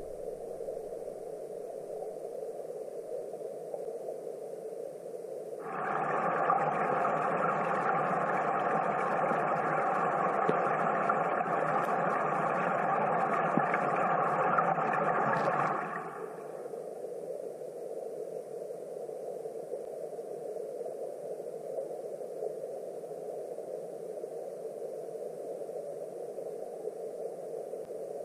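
Steady, muffled rushing of stream water heard underwater through a GoPro's waterproof housing. About six seconds in, a louder, brighter rushing sets in abruptly and cuts off about ten seconds later.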